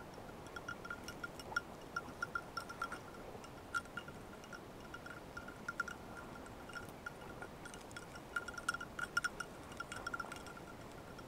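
Bell on a hunting dog's collar ringing in quick, irregular clusters of small chimes as the dog moves through dead bracken, questing for a woodcock.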